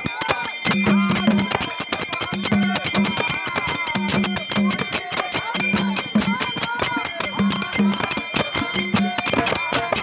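Dhangari ovi folk song sung by a man, with a fast drumbeat on a two-headed drum and bells ringing continuously throughout.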